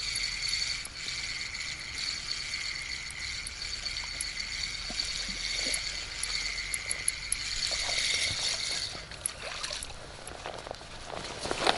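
Spinning reel (Tsurinoya FS 2000) whining steadily as its handle is cranked to retrieve the lure, stopping about nine seconds in. Footsteps on wet grass and snow follow near the end.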